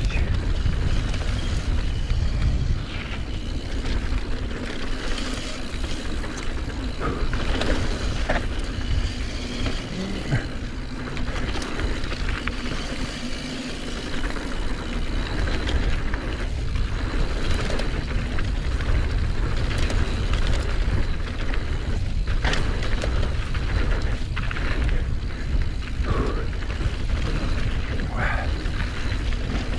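Mountain bike descending a dirt flow trail: steady rushing wind on the action camera's microphone and tyre noise, with short rattles and knocks as the bike goes over bumps.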